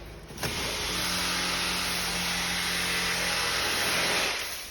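A Ford engine being turned over by its starter motor for about four seconds: a steady whir with a low hum, starting abruptly and fading out near the end. This is a start attempt on a car that would not start with a P0606 ECM processor fault.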